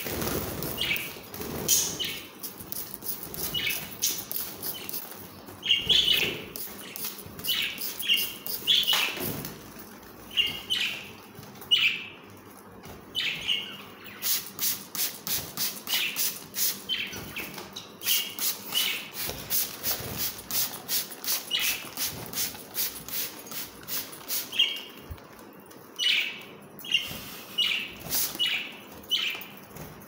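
Budgerigars chirping and fluttering in their cage while a trigger spray bottle is squirted at them over and over, each pump a short hiss of mist.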